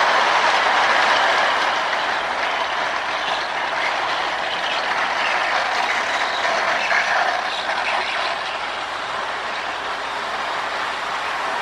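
Marx Commodore Vanderbilt toy electric locomotive with a pre-war motor running on its track with new motor brushes: a steady whir and clatter of motor and wheels, a little louder at first and then settling. It runs well.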